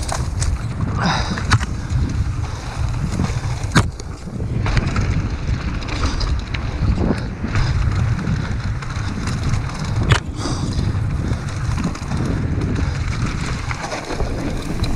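Mountain bike riding fast down a dirt singletrack, with wind buffeting the action camera's microphone and the bike rattling over the rough ground. Two sharp knocks stand out, about four seconds in and about ten seconds in.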